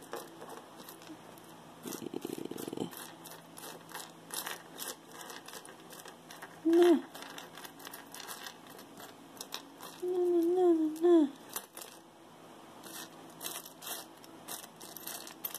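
Small metal and plastic earrings clicking and rattling against each other as a heap of costume jewelry is picked through by hand, with a short rustle about two seconds in. Two brief hums of a woman's voice break in, one near the middle and a longer one a few seconds later.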